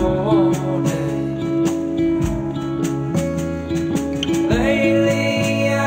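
A band playing a song: drums keeping a regular beat under guitar and bass, with a melody line that slides up into a held note about four and a half seconds in.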